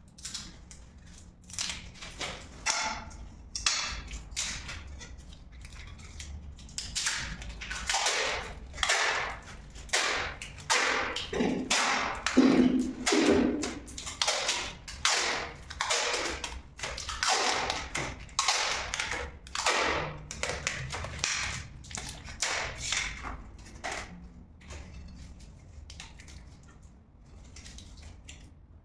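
Perforated metal tile trim being worked by hand: a run of short scraping strokes, about one or two a second, that die away a few seconds before the end.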